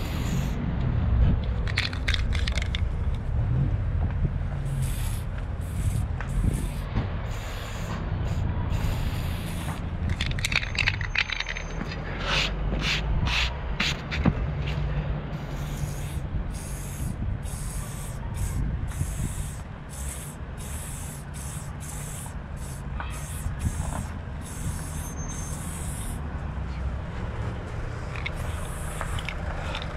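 Aerosol spray-paint can hissing in many short bursts with brief gaps, over a steady low rumble of street traffic.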